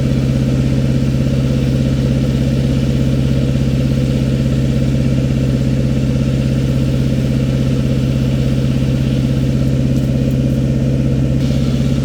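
Old International backhoe's engine running at a steady speed, a constant low drone.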